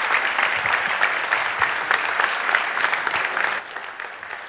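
Audience applauding, a dense patter of many hands clapping that thins and dies down about three and a half seconds in.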